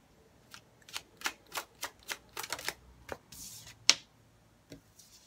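Tarot cards shuffled by hand, a quick run of crisp card clicks, then a short swish and a sharper snap just before four seconds in as a card is laid down on the table.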